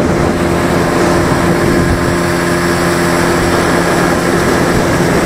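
Suzuki 9.9 outboard motor running steadily under way, pushing an inflatable boat across the water, during its break-in run after winter storage.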